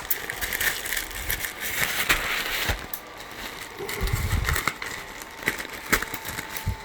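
Plastic mailer packaging crinkling and crackling as it is handled and opened, with many small irregular clicks and a dull bump about four seconds in.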